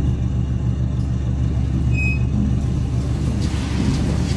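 Steady low rumble of a lift car travelling, with a short high beep about two seconds in. Near the end a rattly noise builds as the lift arrives at a floor.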